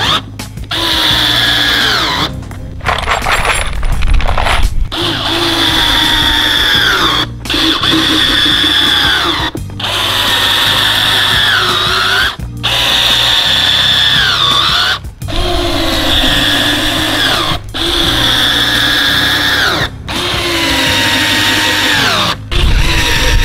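Black+Decker 8-volt lithium-ion cordless drill driving screws into a thick oak board: about ten runs of a couple of seconds each, with short stops between. The motor's whine drops in pitch at the end of several runs as each screw pulls in under load.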